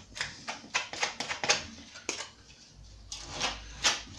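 Glue spreader scraping contact adhesive onto the raw chipboard edge of a laminate worktop in quick repeated strokes, several in the first two seconds and a few more near the end.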